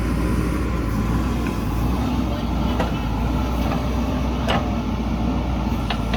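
JCB backhoe loader's diesel engine running steadily, with a few short sharp clanks near the middle and toward the end.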